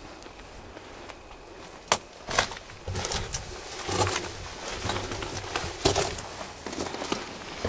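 Footsteps crunching irregularly through dry leaves and undergrowth, starting about two seconds in, with a single sharp knock just before them.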